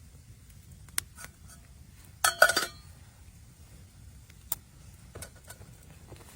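A few sharp clicks and knocks, with a short clatter of clinking, slightly ringing hits about two seconds in.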